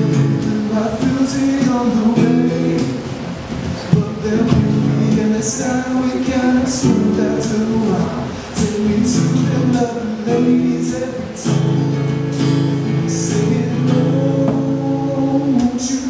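A man singing over his own strummed acoustic guitar, a solo live acoustic cover with long held vocal notes and steady strumming.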